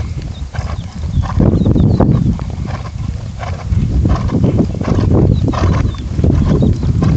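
Hoofbeats of a horse trotting on a sand and dirt arena: dull, even thuds a few times a second over a strong low rumbling noise.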